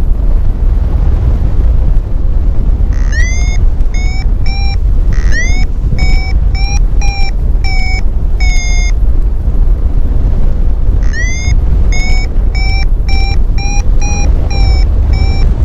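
Paraglider variometer beeping in a thermal, signalling climb: short repeated tones, about two a second, silent for the first few seconds and again briefly around the middle. Loud wind rush on the microphone underneath.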